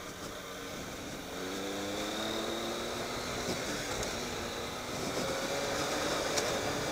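Triumph Tiger 800 XCx's three-cylinder engine accelerating hard, its note rising and then rising again about five seconds in, under a steady rush of wind and tyre noise on gravel.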